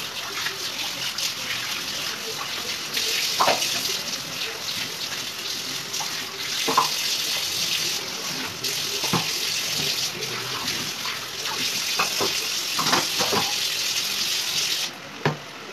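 Egg gravy simmering in a nonstick pan: a steady hiss with scattered bubbles popping in the thick gravy. The hiss cuts off suddenly about a second before the end.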